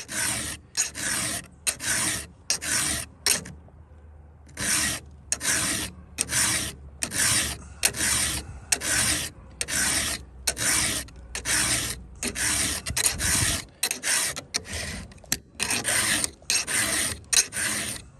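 Round chainsaw file being pushed by hand across a chain's cutter tooth to sharpen it: a steady run of rasping strokes, about two a second, with one short pause about four seconds in.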